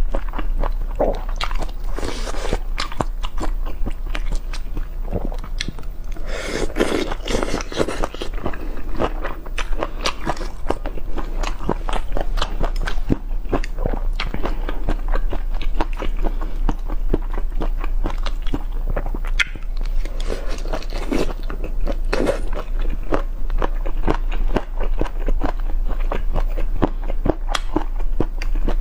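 Close-miked eating of boneless chicken feet: a dense, irregular run of crunchy bites and chewing, with wetter smacking now and then. A steady low hum sits underneath.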